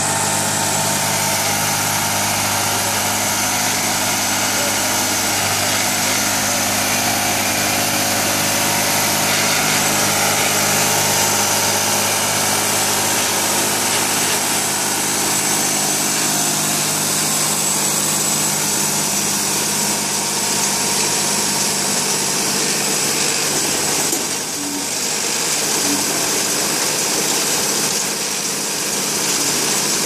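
New Holland 3630 tractor's diesel engine running steadily while it drives a PTO mini round baler gathering sugarcane bagasse.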